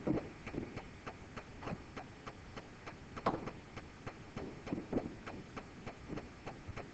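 Light, irregular clicks and taps of a stylus writing on a tablet or pen screen, a few a second, with one louder tap about three seconds in.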